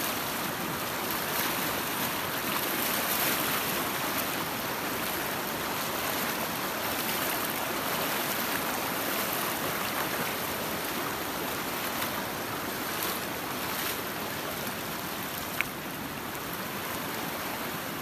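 Steady rushing of a fast-flowing mountain river, a tributary of the Sharda, with one short sharp click near the end.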